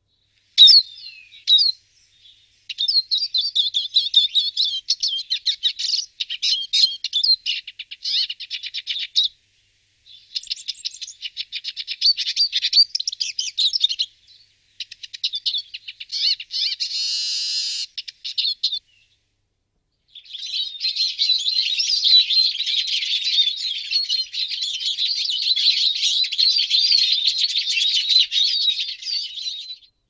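Eurasian siskin singing: a few short call notes, then fast, twittering song phrases in several bouts separated by brief pauses, with a drawn-out buzzy note a little past the middle and the longest bout in the last third.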